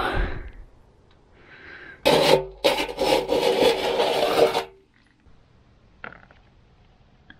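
Metal scoop scraping along the inside of a road grader's tandem chain case for about two and a half seconds, digging out oily sludge. It is a rasping scrape with a steady ringing note, followed by a single light knock near the end.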